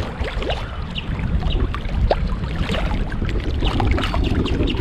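Small splashes and water sloshing beside a kayak as a large redfish is held by the tail in the water to revive it before release, over a low steady rumble.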